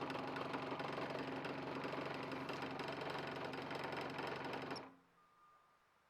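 12-volt truck mini fridge compressor running with a steady mechanical buzz after the red and orange switch wires are shorted to bypass the fridge's bad switch, then cutting off suddenly about five seconds in.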